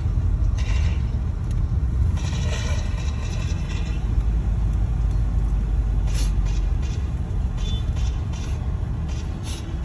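Car cabin noise while driving: a steady low rumble of engine and tyres on the road, easing somewhat about seven seconds in, with a few light clicks and rattles.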